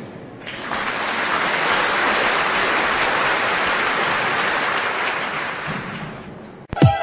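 A steady hiss of noise, like rain or applause, that swells in about half a second in and fades out near the end. Electronic music then starts with a sharp thump.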